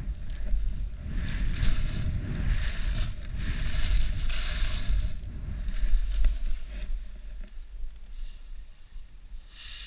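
Wind buffeting the microphone of a helmet camera during a ski descent, a gusty low rumble, with skis hissing and scraping over packed snow in repeated bursts. Both die down over the last few seconds.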